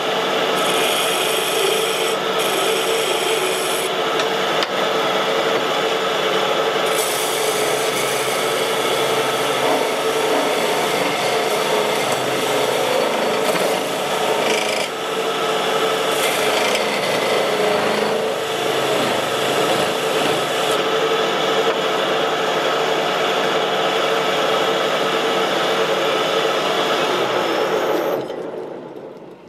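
Wood lathe running with a tool working a spinning pine blank, a steady rasping rub over the machine's hum, shaping the shot glass. It stops near the end.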